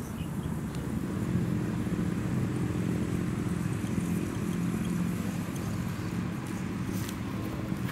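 Scale RC crawler's electric motor and geared drivetrain running, a steady low hum with several held tones that grows louder about a second in.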